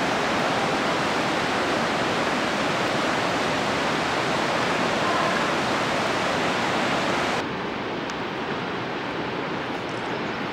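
The Reka river's white water rushing over boulders into the cave mouth as a loud, steady hiss. About seven seconds in it cuts abruptly to a softer, duller rush without the high hiss.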